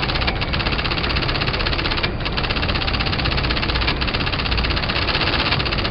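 A steady, very rapid mechanical rattle, like a motor running, with a brief break in its upper part about two seconds in.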